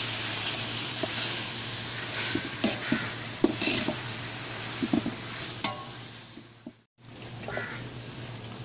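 Chopped tomatoes sizzling in hot oil in a large aluminium pot while a long metal ladle stirs them, scraping and knocking against the pot now and then. The sound fades and cuts out for a moment near the end.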